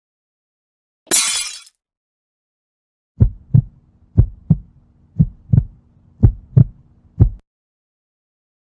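Heartbeat sound effect: five lub-dub double thumps at about one beat a second, over a faint low hum. It is preceded about a second in by a brief, hissy burst of noise.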